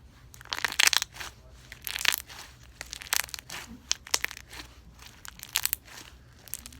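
Slime being squeezed and stretched by hand, giving a run of short, irregular crackles and pops. The loudest cluster comes about a second in.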